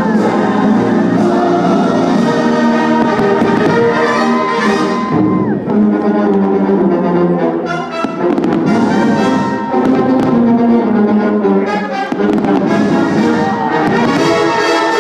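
Orchestral show music led by brass, with trumpets and trombones holding long chords. A few sharp firework bangs cut in around the middle.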